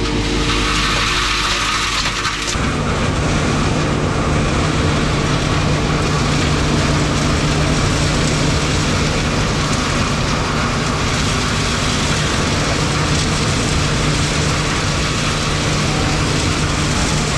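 Wood chip blower vacuuming wood chips up its hose: a loud, steady rush of air and chips over a machine hum, which settles into a steadier, deeper hum about two and a half seconds in.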